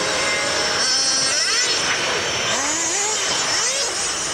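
Radio-controlled model buggy's motor whining, its pitch rising and falling over and over as the car speeds up and eases off.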